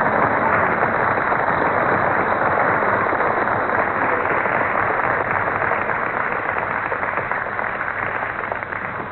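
Large crowd applauding and cheering, a dense steady roar that eases a little near the end.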